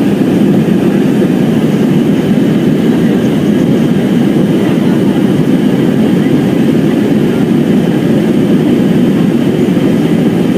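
Airbus A320 cabin noise after takeoff: a steady low rumble of the jet engines and the air rushing past the fuselage, heard from inside the cabin.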